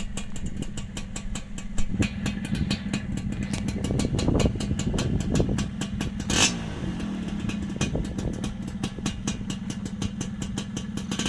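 Suzuki Satria Hiu two-stroke motorcycle engine idling with a fast, even beat, blipped briefly a couple of times around the middle.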